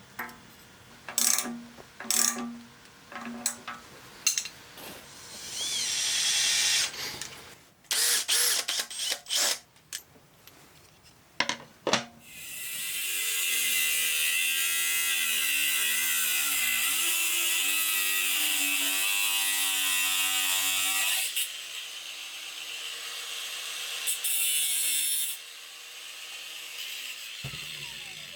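Workshop tool sounds. First comes a string of clicks and knocks like a ratchet being worked. Then a power tool runs loudly for about eight seconds, its pitch wavering, and stops suddenly, leaving a quieter running hum.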